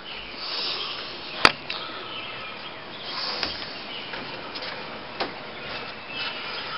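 Outdoor ambience with faint birdsong: short chirps come and go over a steady background hiss. A single sharp click sounds about one and a half seconds in.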